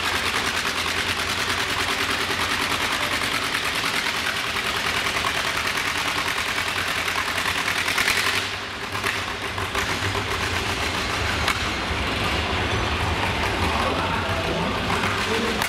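John Deere two-cylinder tractor engine pulling hard under full load, its exhaust popping in a rapid, steady stream. About halfway through the pull ends and the engine carries on more quietly.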